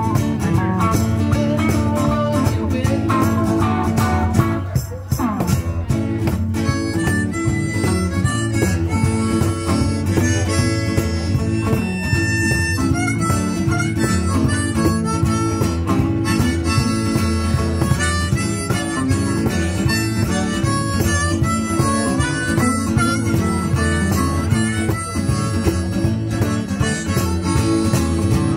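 Live band: a harmonica solo played into a vocal mic over strummed acoustic guitars, in a bluesy style. The harmonica comes in about five seconds in, after a guitar-only stretch.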